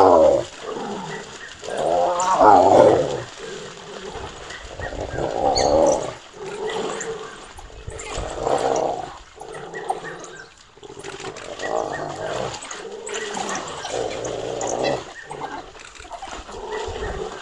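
Spotted hyena and African wild dogs in a fight, with loud drawn-out growling calls about a second long repeating every two to three seconds. Water splashes as the hyena, backed into shallow water, fends off the dogs.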